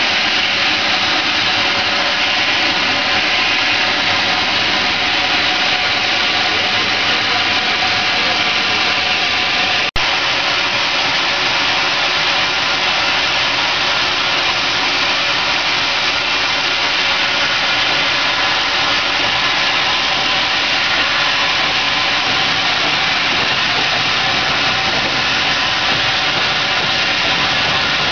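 Steady loud hiss and roar on the footplate of an 1898 Blanc-Misseron steam locomotive, from its fire and steam. It cuts off abruptly about ten seconds in and resumes with more low rumble under the hiss.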